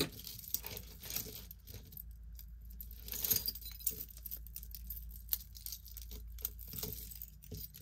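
Metal costume jewelry clinking and jingling as hands sort through a tangled pile, pulling out large metal hoop earrings caught up with chains, with a thicker cluster of clinks about three seconds in.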